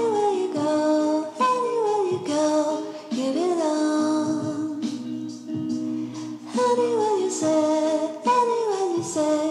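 Background music: a melody whose notes slide downward in repeated phrases over held lower notes.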